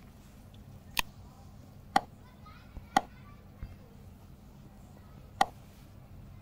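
Four sharp clicks, the first three about a second apart and the last a couple of seconds later, with two fainter ticks between them, over a faint low hum.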